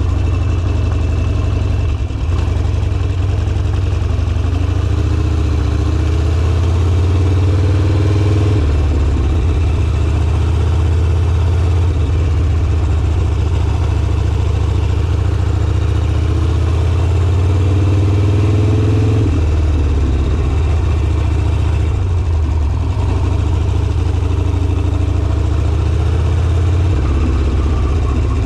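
Harley-Davidson Sportster V-twin engine running under way, a steady deep exhaust note whose pitch shifts with the throttle about eight, nineteen and twenty-seven seconds in.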